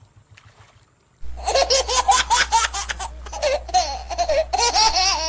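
Quiet for about a second, then a burst of rapid, high-pitched laughter over a steady low hum.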